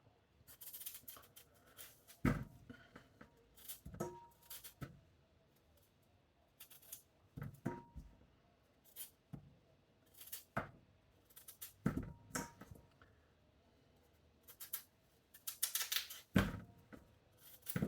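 Large kitchen knife cutting potatoes into small chunks on a chopping board: irregular knocks of the blade hitting the board, with short scraping cuts in between.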